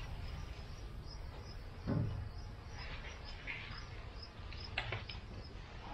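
Quiet ambience with a faint insect chirping evenly, about three times a second. A soft thud about two seconds in and a few light clicks near the end come from onions and their dry leaves being handled on the pile.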